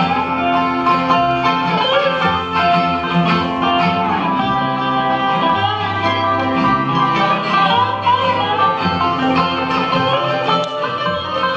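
Acoustic bluegrass band playing live: banjo, acoustic guitar, upright bass, resonator guitar and mandolin, with gliding slide notes over a plucked bass line.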